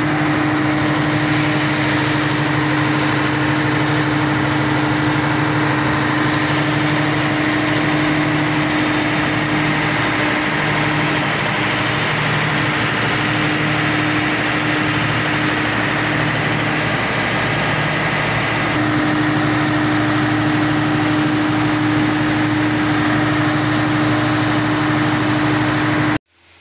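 Mitsubishi S12R V12 marine diesel engine running loud and steady at a constant speed, freshly rebuilt after a complete overhaul. The sound cuts off suddenly near the end.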